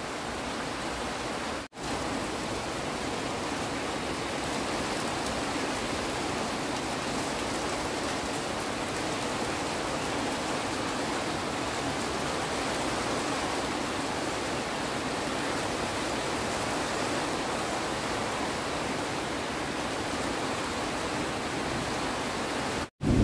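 Steady rain falling, an even hiss without a break. It drops out for a moment about two seconds in and again just before the end.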